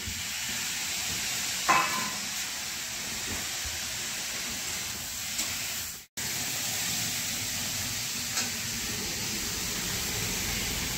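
Food sizzling as it fries in a metal kadhai on a gas burner while it is stirred with a spatula, with one louder metallic clank about two seconds in. The sound cuts out for a moment about six seconds in.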